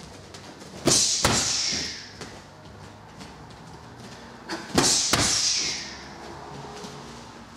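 Punches and kicks landing on a Fairtex heavy bag of about 30 stone: twice a jab thump followed about half a second later by a harder shin-kick impact, each pair trailed by a high rattling hiss that fades over about a second.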